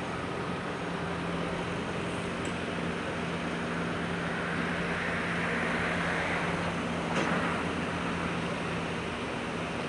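A motor running steadily with a low hum, a hiss swelling in the middle and a single sharp click about seven seconds in.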